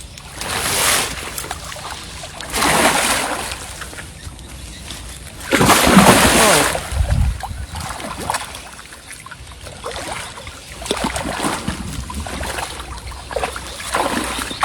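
Water splashing in several heavy bursts, the loudest about six seconds in, then choppier splashing: large hooked fish thrashing at the surface as they are hauled in.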